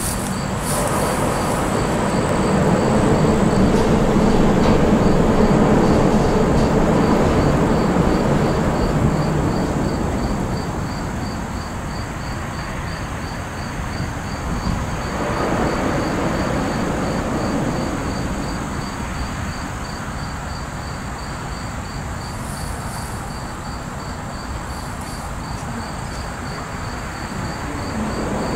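Crickets chirping in a steady, even pulse over a low rumble of distant traffic that swells during the first ten seconds and again about halfway through.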